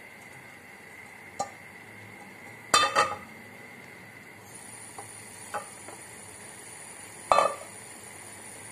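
Metal cookware clattering as a non-stick cooking pot of rice is knocked against a frying pan and set down on the counter: a light clank, then a loud double clatter about three seconds in, two light clicks, and another loud clatter near the end.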